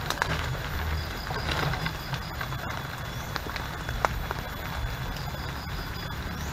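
Footsteps through wet forest undergrowth under a steady hiss of rain, with a few sharp ticks.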